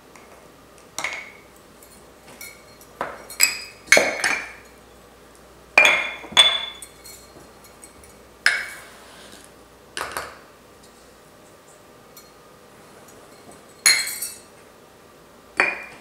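Metal measuring cup clinking and scraping against sugar canisters and a stainless steel mixing bowl as sugar is scooped out and tipped in. About ten separate sharp clinks and knocks, spaced irregularly.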